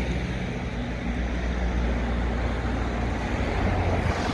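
Strong wind buffeting the phone's microphone: a steady low rumble under a wide hiss.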